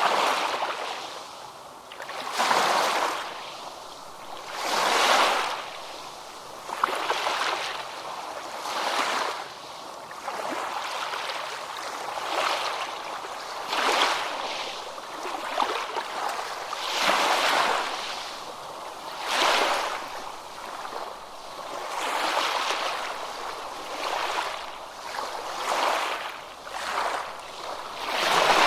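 Ocean waves washing in one after another, each one a surge of rushing, rippling water noise that swells and fades about every two seconds.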